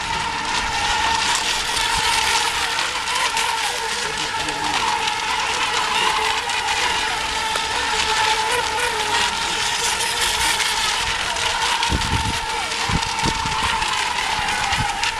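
Electric radio-controlled racing boats running on the course, a steady motor whine with a held tone and a hiss of water and spray. A few low thumps come near the end.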